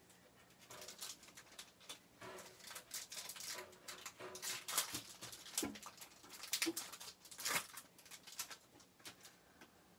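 Foil trading-card pack wrapper being crinkled and torn open by hand: a run of irregular sharp crackles and rustles, loudest around five and seven and a half seconds in.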